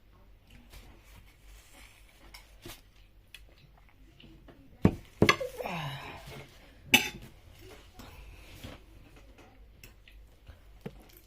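Cutlery tapping and scraping on a plate during eating, with small faint clicks throughout. About five seconds in come two sharp clinks and a brief voice-like sound, then another sharp clink a couple of seconds later.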